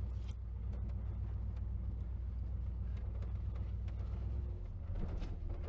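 Jeep Wagoneer's engine running with a steady low rumble. The rumble shifts a little over four seconds in, with a few faint clicks above it.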